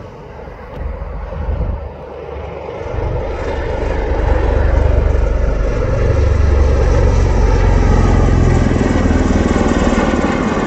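A CV-22 Osprey tiltrotor passes low overhead. Its prop-rotors beat deeply over the engine noise, growing louder over the first few seconds and then staying loud.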